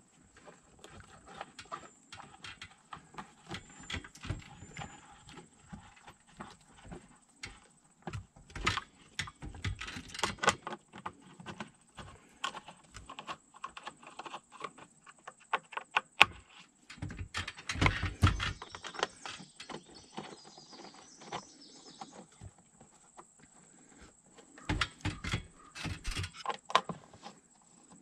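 Hand screwdriver driving screws into a plastic steering-column cover, with irregular clicks, scrapes and knocks of the plastic trim, coming in short clusters.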